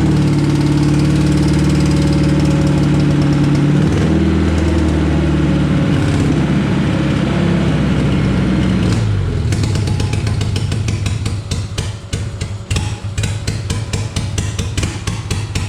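Honda K20 engine being cranked over on its starter on a first start attempt with old fuel, a steady drone that changes pitch about four seconds in. From about nine seconds in it turns into rapid, uneven pulses as the engine tries to catch.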